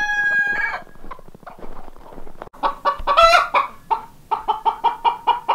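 Broody Icelandic hen clucking. It opens with one long drawn-out call, gives a louder call about three seconds in, and then settles into a steady run of short clucks at about five a second. This is the clucking of a hen that is sitting on eggs, which sounds different from a normal hen's and which the owner calls talking to her chicks.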